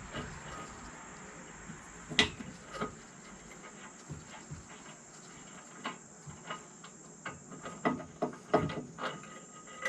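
Scattered clicks and knocks of an old excavator work light being taken off by hand, the loudest about two seconds in and near the end, over a steady high-pitched whine.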